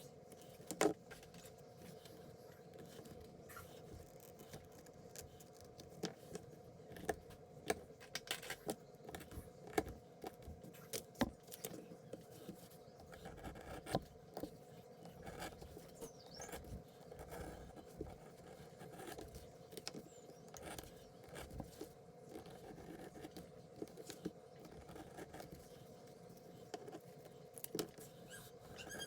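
Scattered clicks, scrapes and rustles of crafting materials being handled and cut, most of them between about 6 and 15 seconds in, over a steady low hum.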